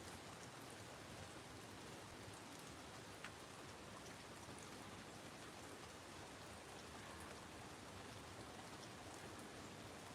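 Faint, steady rain falling, with scattered drops ticking and one sharper drip about three seconds in.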